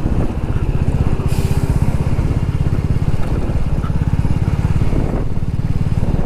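Motorcycle engine running steadily at road speed, its low, even firing pulse under a layer of road and wind noise, with a brief hiss about a second in.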